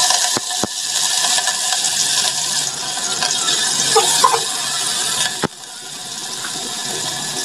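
Chopped green chillies frying in hot oil in a pot: a loud, dense sizzle with a few sharp clicks. About five and a half seconds in it drops off suddenly, then slowly builds up again.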